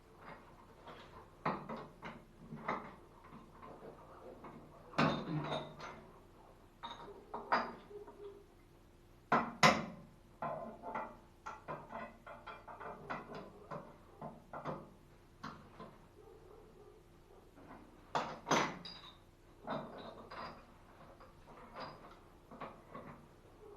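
Metal plumbing tools and fittings being handled: scattered clicks, knocks and clinks at irregular intervals, the loudest about ten seconds in.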